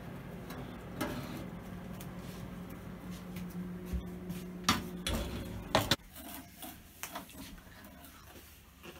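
Metal baking tray of cookies scraping and clattering as it is pulled out of the oven and set down on the gas stove's grates, with a cluster of sharp knocks about five seconds in, over a steady hum from the oven that cuts off about six seconds in. Then faint scraping of a utensil under the cookies on the tray.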